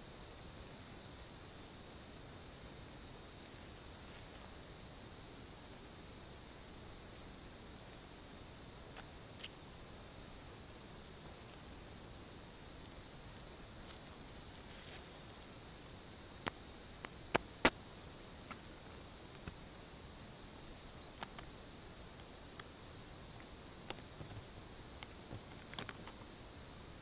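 Steady, high-pitched chorus of insects, with a few sharp clicks scattered through it, two loud ones close together about two-thirds of the way through.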